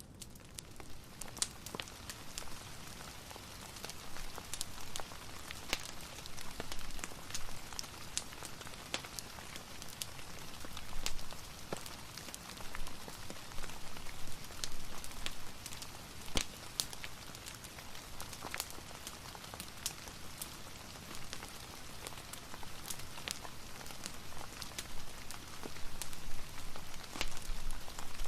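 Steady rain with frequent, irregular sharp crackles and pops from a wood fire.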